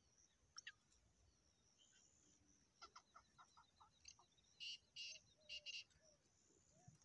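Black francolin calling: a run of short notes, then four loud, harsh notes in quick succession near the end. Small birds chirp faintly in the background.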